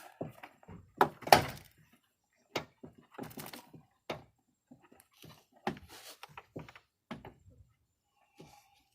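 Irregular sharp knocks and clunks, the loudest two about a second in, as tools work the plastic trim panel and its tight pin-type fasteners loose from a car's door.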